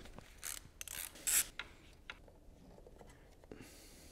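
Old intake manifold gaskets being pried and pulled out of the intake ports of a BMW M70 V12 cylinder head with a pick and gloved hands. A few short rubbing scrapes and light clicks come in the first two seconds, then a couple of faint clicks.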